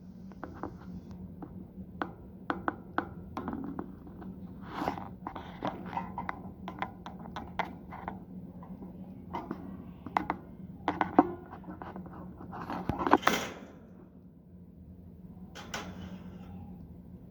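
Small cage birds moving about their cage: irregular taps, clicks and scratches, with a brief louder rustle or flutter about thirteen seconds in, over a steady low hum.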